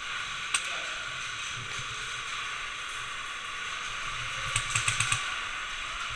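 Airsoft gun firing: a single sharp shot about half a second in, then a quick string of five shots about four and a half seconds in, over a steady hiss.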